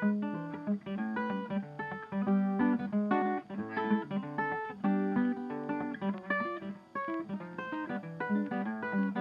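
Background music: an acoustic guitar picking a quick, busy melody of short plucked notes.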